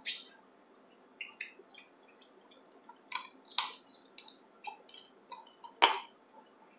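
Close-up eating sounds of a person eating snow crab meat by hand: scattered wet smacks, sucks and clicks of chewing and finger-licking, with three louder smacks near the start, about halfway and near the end.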